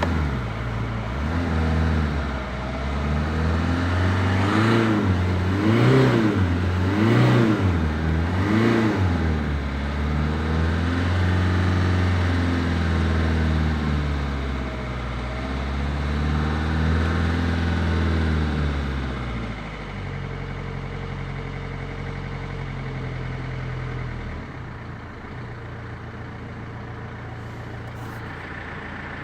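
Renault Clio II 1.5 dCi four-cylinder diesel engine running just after a hard start. It is blipped up and down four times in quick succession, then held up twice for a few seconds, and drops to a steady idle about two-thirds of the way in.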